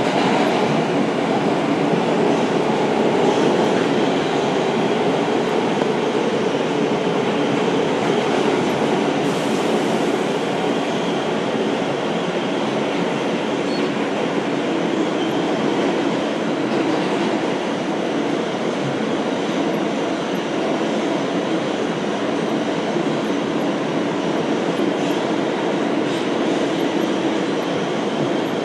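Steady rumbling noise of a vehicle in motion, unchanging throughout.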